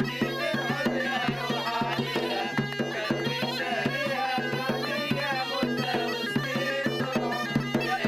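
Tunisian mezwed (goatskin bagpipe) playing a folk tune, backed by steady beats on a double-headed drum and hand-clapping.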